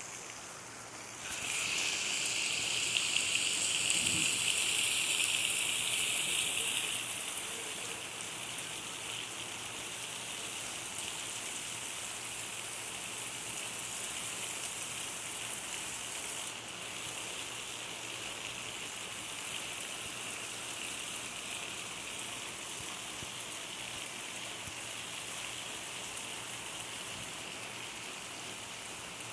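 Heavy rain falling on pavement and rooftops, a steady hiss that is louder for the first several seconds and then evens out.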